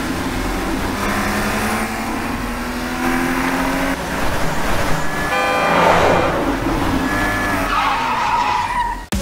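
Sports car engine revving as it accelerates, then tyres squealing through a skid, loudest about six seconds in. A drawn-out tyre squeal near the end cuts off suddenly.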